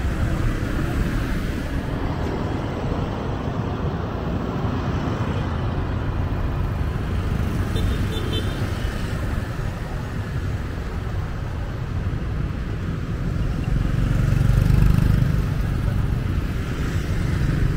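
Road traffic: motorbike, tuk-tuk and car engines running and tyres on the road, a steady rumble that swells louder about fourteen seconds in as motorbikes pass close.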